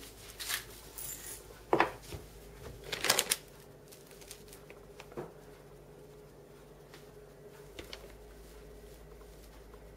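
A few sharp clicks and knocks as a glass spice jar is handled and tipped into a plastic zip-lock bag, strongest about two and three seconds in. After that only a faint steady hum is left.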